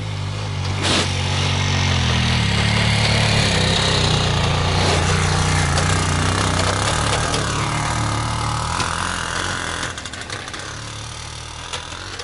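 Small three-wheeled cargo motor scooter's engine running as it drives past and away, loudest for the first several seconds and fading near the end.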